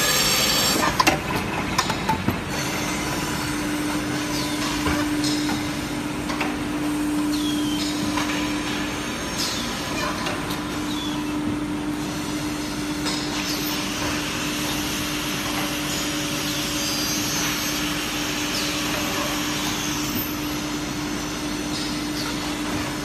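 Automatic melamine tableware edge-grinding machine running: a steady hum under continuous mechanical noise, with scattered sharp clicks and knocks. A loud high squeal fades out about a second in.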